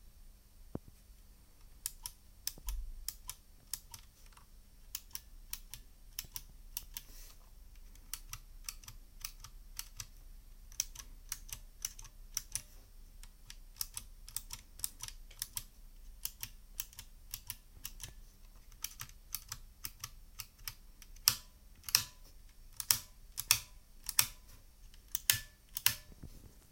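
Keys being typed on a Gamdias Hermes P1 mechanical keyboard with TTC Blue clicky switches: a stream of irregular key clicks starting about two seconds in, with a handful of louder, harder strikes near the end.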